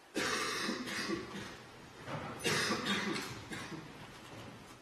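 A person coughing in two bouts, the second about two seconds after the first.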